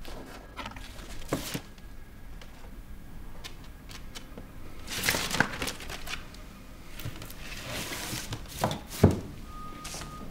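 Handling noises in a small quiet room: scattered clicks, a rustling scrape about five seconds in, and a sharp knock near the end.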